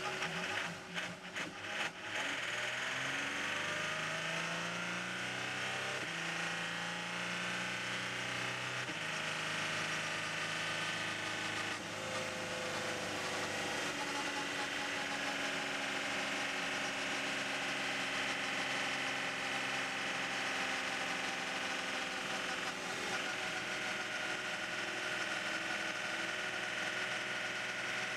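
Audi R18 e-tron quattro's turbodiesel V6 heard from the cockpit, cutting in and out briefly near the start and then accelerating hard through the gears. Its pitch rises and drops back at each upshift, three times in the first several seconds, then holds steady at high speed.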